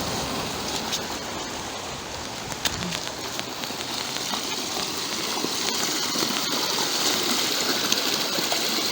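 Steady rush of water from a river close by, mixed with falling rain, with a few faint ticks.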